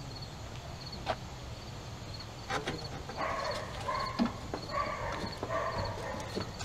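A dog giving a run of drawn-out whining calls, starting about three seconds in and lasting about three seconds. A faint high chirp repeats steadily underneath, with a few light clicks.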